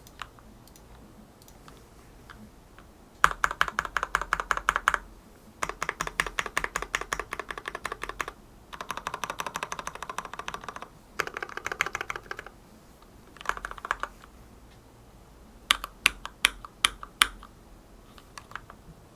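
Typing on a hand-wired Aroz65 mechanical keyboard with Gateron Milky Black linear switches, lubed with Krytox 205g0, in a stacked acrylic case. Fast runs of keystrokes come in bursts of one to two seconds, starting about three seconds in, followed by a handful of louder separate key strikes near the end.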